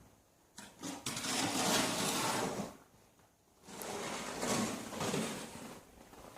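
Snow shovel scraping and pushing snow, two long strokes of about two seconds each with a pause between.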